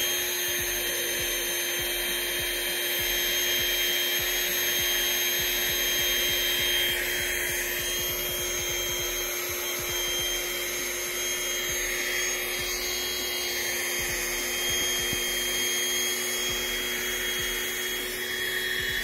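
Small handheld electric air inflator running steadily with a constant whirring hum and hiss, pumping air through the valve into an air bed.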